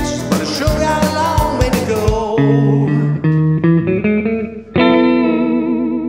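Background music with guitar: a drum beat drops out about two seconds in, leaving held guitar chords, and another chord is struck near the end and left ringing.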